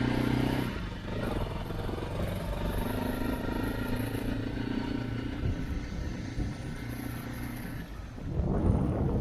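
Motorcycle engine running as the bike sets off, with a louder low rumble for about a second near the end.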